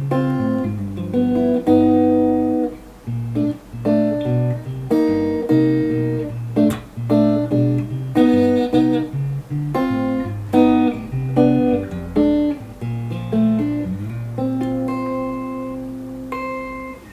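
Fender Player Series Stratocaster electric guitar played through an amplifier on the neck-and-middle pickup mix, with picked single notes and chords in a soft tone. It ends on a chord held for the last couple of seconds.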